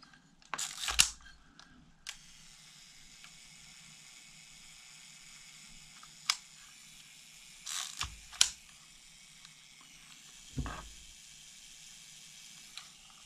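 Yashica 35mm rangefinder camera's mechanism clicking as it is worked with the shutter set to B. There are a few separate short, faint clicks spread over several seconds: two close together about a second in, and a small cluster of clicks about two-thirds of the way through.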